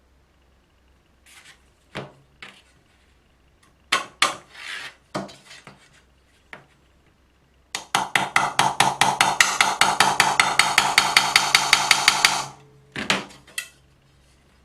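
Scattered knocks and clicks of metal parts being handled, then a sewing machine runs for about four and a half seconds: a low motor hum with rapid, even needle clicks about five a second. It stops suddenly and is followed by a couple of knocks.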